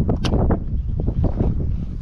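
Wind buffeting the microphone as a steady low rumble, with irregular knocks and rustles over it.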